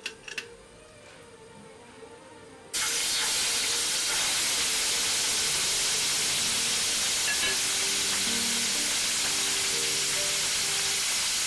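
Raw steak searing in hot oil in a stainless steel frying pan: a loud sizzle starts suddenly about three seconds in and holds steady. Before it, a few light metal clicks.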